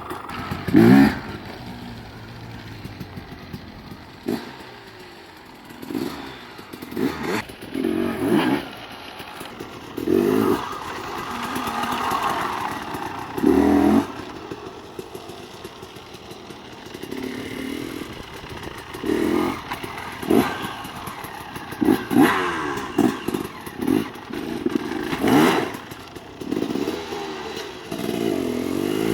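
KTM 250 XC two-stroke dirt bike engine revving in repeated bursts, the pitch climbing and dropping as the throttle is opened and shut, with some clattering knocks.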